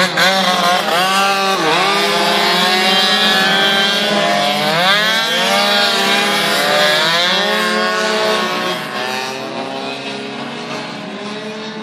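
A pack of racing scooters revving hard through a bend and accelerating away, several engine notes rising and falling over one another. The sound drops somewhat after about eight seconds as the pack moves off.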